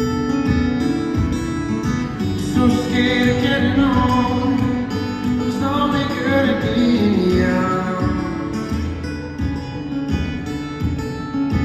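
Solo acoustic guitar played live through an arena sound system: an instrumental passage of picked bass notes and melody lines.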